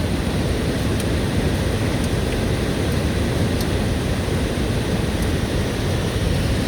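Hailstorm: a loud, steady, dense roar of falling hail, with a few sharp single clicks of individual hailstones striking close by.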